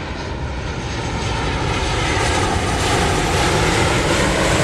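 Airplane engine running and slowly growing louder, its tone sliding slightly in pitch as it comes closer.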